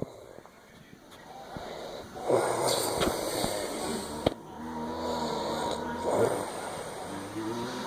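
A sleeper snoring: two loud snoring breaths in about four seconds apart, with a soft pitched tone on the breath between them.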